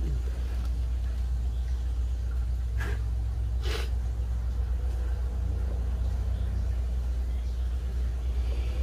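A steady low rumble throughout, with two short noisy sips about three seconds in as a person drinks water from a plastic cup held to her lips.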